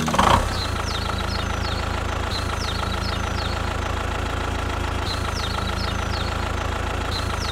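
A small engine idling steadily with a fast, even pulse. A brief loud knock comes right at the start, and short, high falling chirps repeat over the engine about every second.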